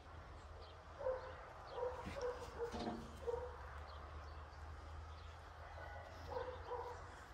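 A dog barking and yipping faintly in the distance: a few short calls about a second in through the third second, and more near the end, over a low steady hum.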